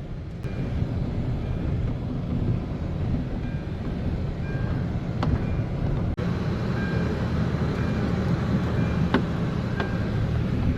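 A steady low rumbling noise, with a few faint short tones and sharp clicks over it and a brief break about six seconds in.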